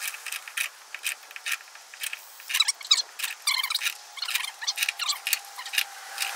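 Screw-in hinge auger being turned into wood with a wrench: a run of irregular short squeaks and clicks as the threads bite and the wrench works around.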